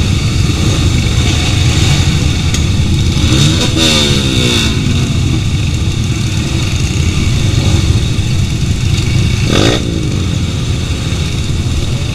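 Motorcycle engines running close by in a loud, steady rumble, with revs rising and falling about four seconds in and again later on.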